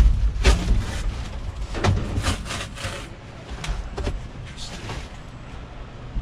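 Cruiser bicycle riding: steady low wind and road rumble with irregular clicks and rattles from the bike, frequent in the first three seconds, then fewer and quieter.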